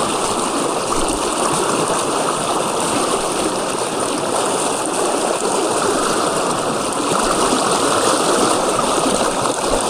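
Fast-flowing river water rushing steadily, a full, even sound.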